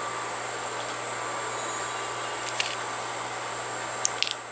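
Steady background noise with a constant low hum, broken by a few faint, sharp clicks about two and a half seconds in and again near the end.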